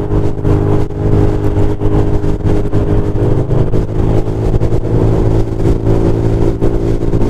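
GY6 150cc single-cylinder four-stroke scooter engine running at a steady cruising speed, its drone holding an even pitch throughout. Wind noise rushes over the microphone.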